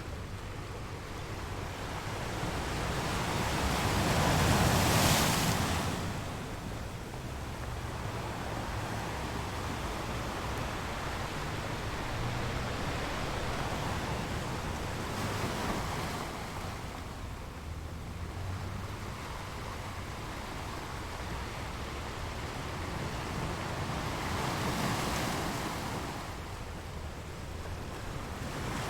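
Sea waves surging and washing in, swelling three times about ten seconds apart, the loudest about five seconds in.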